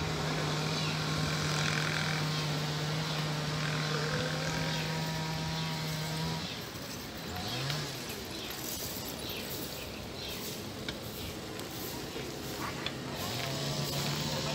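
Roadside traffic: a motor vehicle engine runs with a steady low hum that stops about six seconds in. A short rising engine note follows, and the hum returns near the end, with faint voices in the background.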